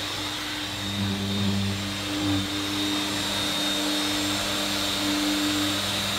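Dust extractor and electric floor sanders running steadily, a constant hum with a thin high whine over it, the hum's pitch shifting slightly a few times.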